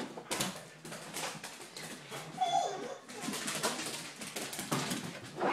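Vizsla puppy's paws thudding and scrabbling over a hardwood floor and couch as it runs zoomies, a quick irregular run of knocks and scuffles. A short high squeak comes about two and a half seconds in.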